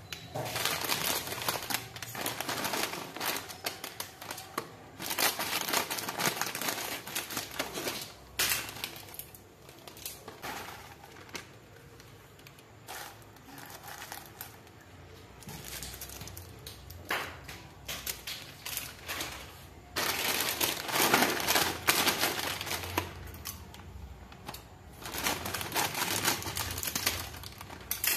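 Plastic foil snack packets crinkling and rustling as they are handled and opened, in loud bursts with quieter stretches between, along with puffed corn snacks shifting about as a hand rummages through them in a bowl.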